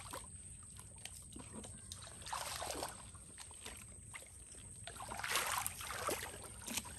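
Shallow water sloshing and trickling in two short bouts, about two seconds in and again around five seconds in, as hands move through it, with faint scattered clicks.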